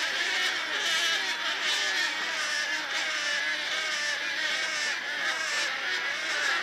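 A large colony of wood storks calling: a dense, unbroken din of many overlapping, wavering calls.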